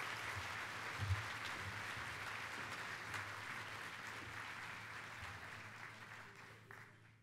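Large audience applauding, slowly fading out near the end.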